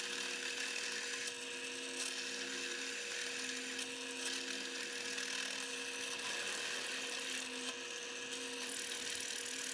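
Electric drill running steadily, with a constant motor whine, as it bores holes through 1-inch square steel tubing table legs.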